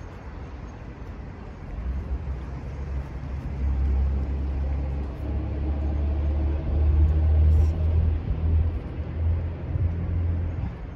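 A motor vehicle passing on the street, its low engine rumble swelling over a few seconds, loudest past the middle, then fading.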